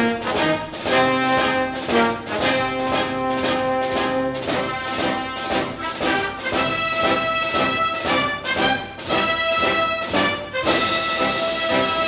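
Instrumental background music with a steady beat; the arrangement changes about ten seconds in.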